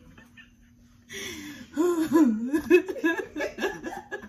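A woman laughing, starting about a second in after a brief lull and running in short, pitch-bending pulses until near the end.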